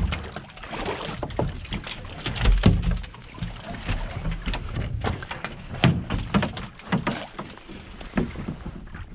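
Irregular knocks and clatter on a fishing boat's metal hull and rail as fish on a line are hauled up alongside, over a low steady rumble, with a heavier thump about two and a half seconds in.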